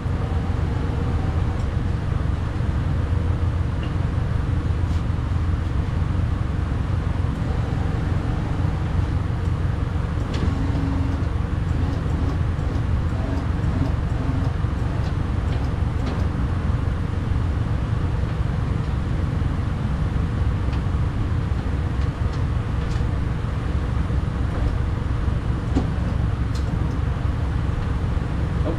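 Steady low rumbling background noise, with a few faint, scattered clicks and taps of hand-work on parts inside a truck door.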